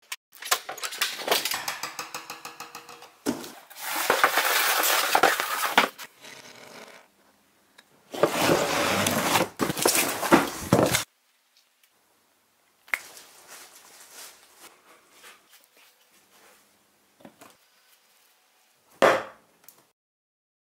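Unboxing a longboard deck: a cardboard box and its plastic wrapping being opened, with crackling, tearing and rustling in several loud bursts of a few seconds each, quieter handling in between, and a short sharp scrape near the end.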